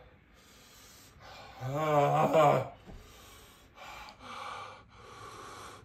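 A man's long wavering groan about two seconds in, followed by three sharp breaths through the open mouth, his reaction to the burn of Carolina Reaper-seasoned almonds.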